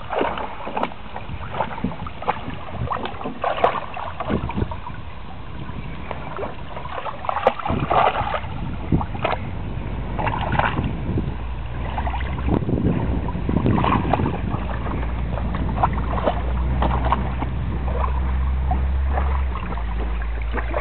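Shallow water splashing and sloshing in irregular bursts as pets chase a tadpole through it, with a low steady rumble underneath that grows in the second half.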